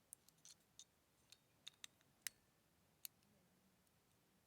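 Faint, irregular light clicks and ticks of small metal parts being handled while a small tuning fork is fitted into a metal fidget slider, about nine in all, the sharpest two past the middle.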